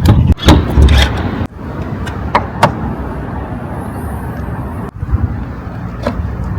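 Close-up sounds of a Porsche 718 Spyder RS: a low steady rumble with several sharp clicks, broken by sudden cuts about a second and a half in and again near five seconds.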